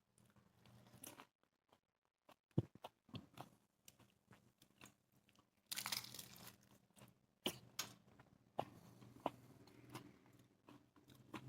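A person biting and chewing golgappe (pani puri), the crisp fried shells crunching in irregular close bites, with a louder crunching stretch about six seconds in.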